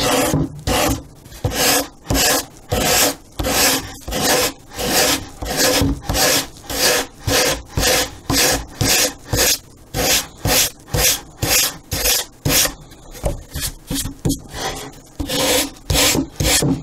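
Hand sanding block scrubbed back and forth over the balsa corner of a model airplane fuselage, about two strokes a second, rounding the edge down to the triangular stock.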